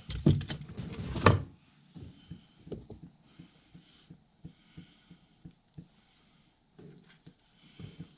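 A second and a half of handling clatter and knocks. Then a dryer vent's flapper gives faint, irregular light ticks, about one or two a second, tapping in its frame as air moves through the house, so that it sounds like water dripping.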